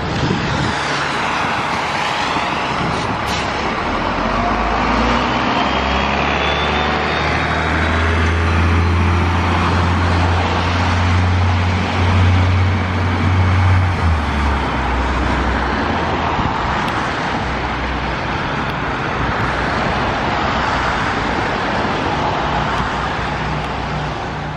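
2002 Gillig Advantage transit bus under way, its Cummins ISC diesel engine and Voith automatic transmission running: a steady engine drone under road noise. A whine rises in pitch about five seconds in, and the engine hum swells for several seconds in the middle before settling back.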